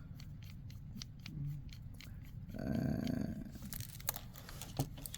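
Small irregular clicks and scrapes of handling an M.2 NVMe drive and the laptop's drive caddy as the drive is seated and screwed down, with a brief low murmur a little past halfway.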